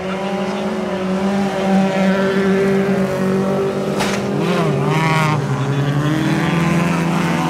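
Several folkrace cars' engines running hard at race pace on a dirt track. About four seconds in, one car comes close and passes, its engine note swinging up and down for about a second.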